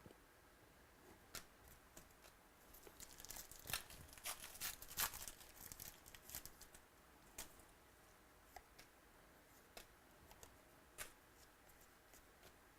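Faint rustling and crinkling of baseball card packs and cards being handled, densest about three to six seconds in, then scattered light clicks.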